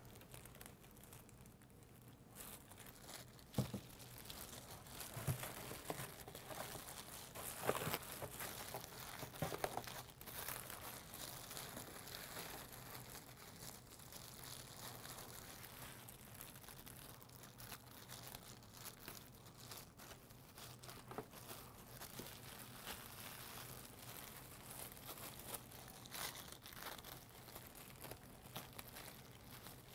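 Plastic wrap crinkling and rustling as it is wrapped around a dyed, rubber-banded T-shirt, with a few louder crackles in the first ten seconds.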